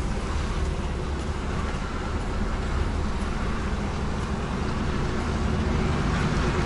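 HGV's diesel engine running steadily at low speed while the lorry manoeuvres, heard from inside the cab as a continuous low drone that grows a little louder near the end.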